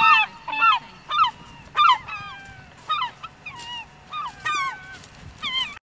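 Gulls calling overhead: a run of short, bending, wailing cries, about one or two a second, loudest in the first two seconds and softer after. The sound cuts off suddenly near the end.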